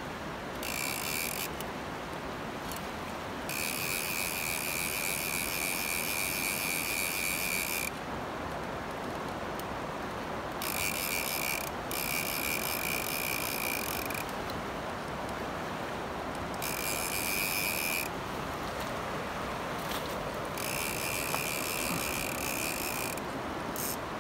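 A fishing reel's ratchet clicking in repeated spells of one to four seconds while a salmon is played on the line, over the steady rush of a river.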